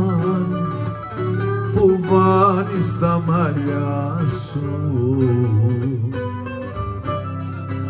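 Mandolin and two laouta (Greek long-necked lutes) playing an instrumental passage of a Cretan song, plucked notes over a steady low accompaniment.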